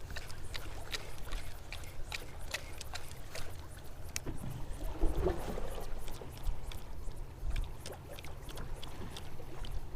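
Low steady rumble of a fishing boat at sea, with scattered small clicks and knocks.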